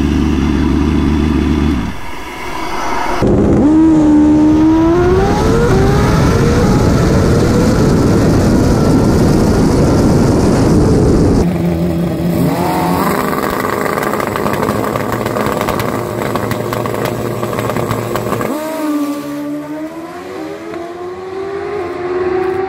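A drag-racing motorcycle engine revving and pulling hard, its pitch climbing steadily, heard in several cut-together clips that change abruptly.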